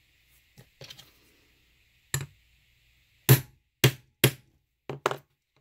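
A hammer striking a rivet setter about six times in an uneven rhythm, setting an extra-small rivet through a folded vinyl strip. A couple of faint taps come first, and the blow about a third of the way in is the loudest.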